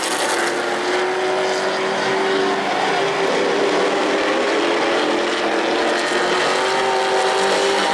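Pro Truck racing trucks' engines running at speed on an asphalt oval: a steady drone of several engine tones at once.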